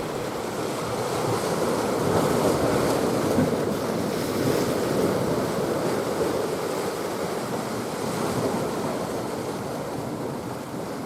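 Sea waves washing and surging, with wind on the microphone; the wash swells a couple of seconds in and slowly eases toward the end.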